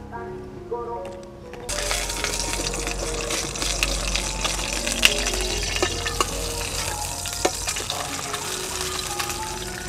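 Duck egg frying in oil in a pan, a dense steady sizzle with sharp crackles. The sizzle starts suddenly about two seconds in and cuts off just at the end, over background music.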